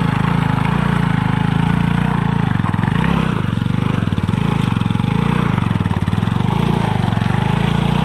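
Motorcycle engine running steadily at low revs as the bike crawls over a muddy, stony dirt track.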